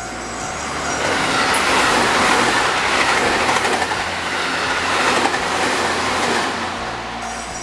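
Electric commuter train passing at speed close to a level crossing, its wheels running on the rails. The noise builds over the first two seconds, stays loud through the middle, and eases off near the end as the train clears.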